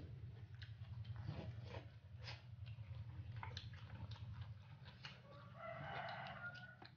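A rooster crowing in the background for about a second near the end, over soft clicks of fingers picking at rice on a banana leaf and a steady low hum.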